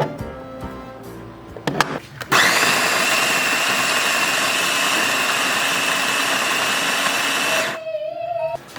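Sboly SYCG-801 automatic conical burr coffee grinder grinding beans: after a couple of clicks its motor starts and runs with a loud, steady whining grind for about five seconds, then stops.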